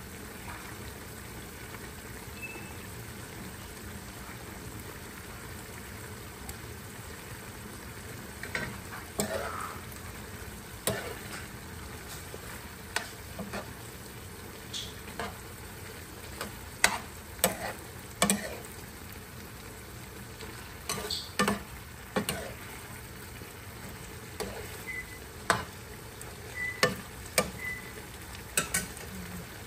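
A pan of pork and liver stew with carrots sizzling steadily on the stove. From about eight seconds in, a metal spoon stirs it, scraping and clinking against the pan at irregular moments.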